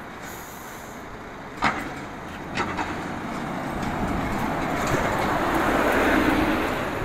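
Double-decker coach passing close by on a city street: engine and tyre noise swell to a peak about six seconds in, then ease off. A sharp click sounds about a second and a half in, and another a second later.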